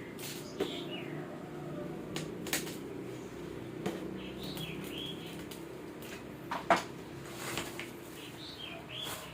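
Scattered clicks and knocks from a monitor box and its packaging being handled, the loudest knock about two-thirds of the way through, with short high chirps now and then.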